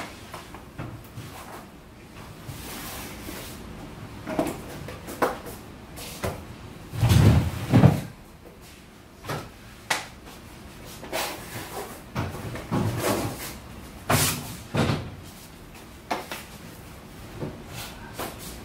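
Square wooden floor panels being set down and pressed into place by hand: irregular knocks and taps, with a louder cluster of heavier thumps about seven to eight seconds in.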